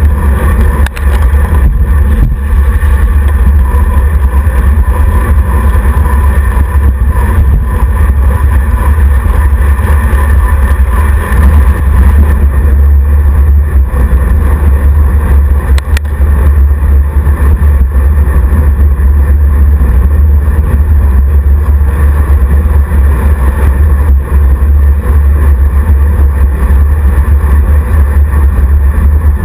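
Steady, loud wind rumble buffeting the microphone of a handlebar-mounted camera on a road bike riding at speed, with road noise underneath.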